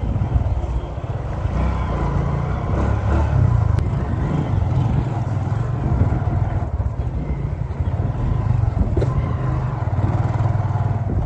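Motor vehicle running steadily, a continuous low engine sound with road noise and a faint steady whine.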